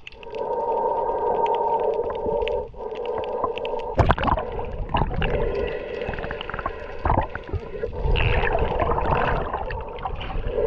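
Underwater sound picked up by a snorkeler's camera: a steady droning hum with scattered crackling clicks. From about four seconds in come several heavy knocks and bursts of churning water, with bubbles swirling around the camera near the end.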